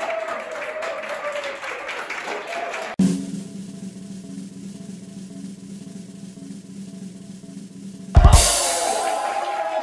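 Applause with voices for about three seconds, then a sudden cut to an edited-in snare drum roll that runs for about five seconds. It ends in a loud cymbal-and-bass-drum crash, after which applause and voices come back.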